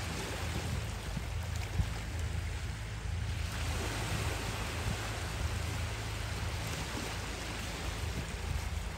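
Small waves washing and breaking over a cobble shore, with a wave breaking more loudly a little over three seconds in, over a steady low rumble.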